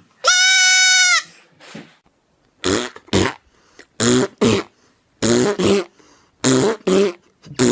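A goat kid bleats once: a loud, high call held for just under a second. After a pause comes a run of short cough-like sounds in pairs, about one pair every second and a quarter.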